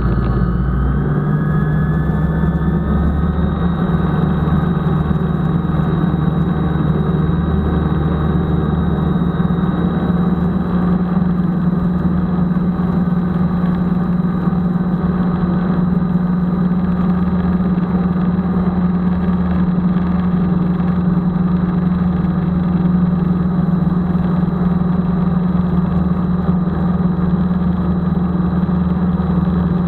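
Rans S-7S Courier light aircraft's engine and propeller in flight: a steady drone whose pitch rises a little in the first few seconds, then holds even, with air rushing over the airframe.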